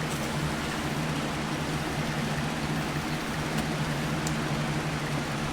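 Steady low machine hum with an even hiss, like a fan or air conditioner running, and a couple of faint clicks partway through.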